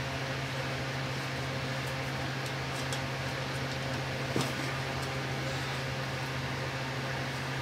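A small motor running with a steady low hum, with a faint click of parts being handled about four and a half seconds in.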